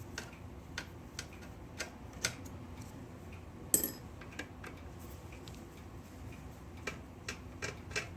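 Irregular small metallic clicks and taps from handling a vintage Smith Corona typewriter's mechanism during disassembly. One sharper click comes a little under four seconds in.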